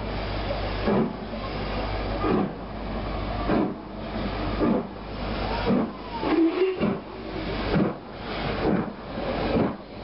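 Steam locomotive 45305, an LMS Stanier Black Five 4-6-0, moving slowly along the platform with a low rumble and a regular beat about once a second. A short squeal comes a little past halfway.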